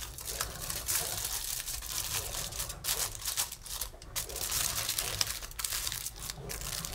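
Aluminium foil crinkling and crackling as hands turn over and fold a foil packet, in quick irregular crackles.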